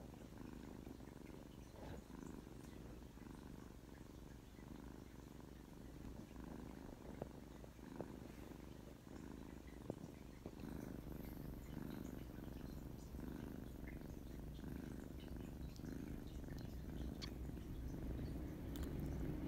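A kitten purring steadily close to the microphone, a low continuous purr that grows a little louder toward the end.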